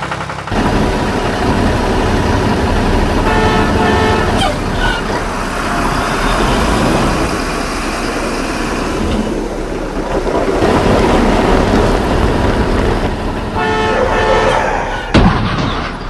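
Vehicle horn honking twice, about four seconds in and again near the end, over a steady running vehicle engine, with a sharp knock near the end.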